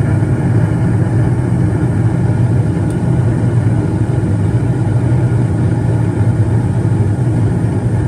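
Bryant gas furnace running with its burners lit and the newly replaced inducer fan going: a steady low hum and rush. The furnace is firing normally after the inducer, pressure switch and control board were replaced.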